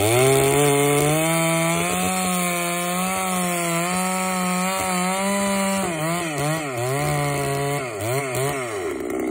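A 90cc Chinese knockoff two-stroke chainsaw cutting through a red oak log at full throttle, its engine pitch held steady under load. From about six seconds in, the revs swing up and down several times as the cut goes on.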